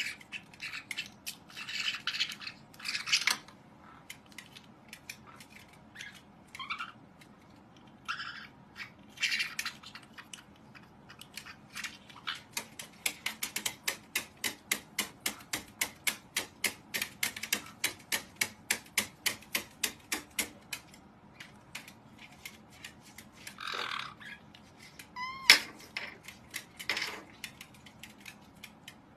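White-bellied caiques calling in short chirps and squawks, with one sharp call about 25 seconds in the loudest. In the middle there is a long run of quick, even tapping on the plastic stand, about four taps a second.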